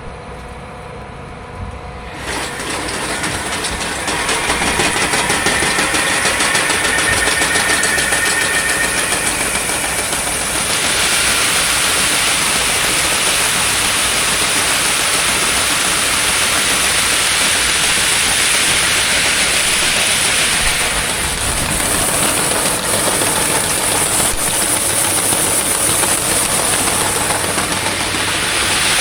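Wheat seed pouring into a grain drill's seed boxes: a steady rushing hiss that starts about two seconds in and turns brighter and louder from about ten seconds on.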